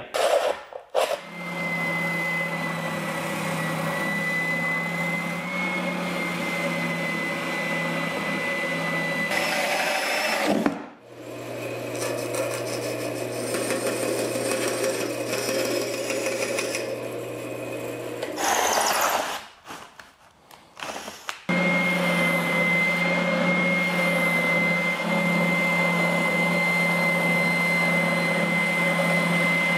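Woodshop power tools running in short takes. A band saw cuts through a stack of Baltic birch plywood in the middle, and an oscillating spindle sander sands a small plywood part near the end, its motor carrying a steady high whine; the same sander sound is also heard at the start.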